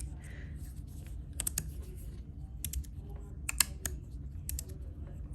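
Axiom Apache magnetic fidget slider being worked by hand: irregular sharp clicks and clacks as its plates are slid and snap against its magnets.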